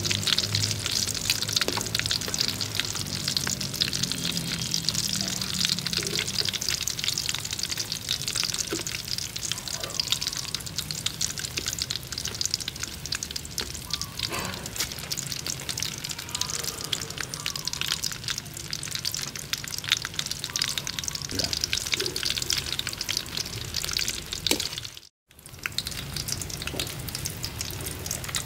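Battered baby duck eggs deep-frying in hot oil: a steady crackling sizzle, with a few light clicks of metal tongs turning them. The sound breaks off briefly near the end.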